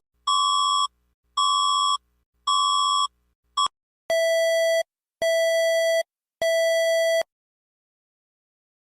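Electronic alert tone made of clean, buzzy beeps: three higher beeps about a second apart, a brief blip, then three lower beeps, each starting and stopping abruptly.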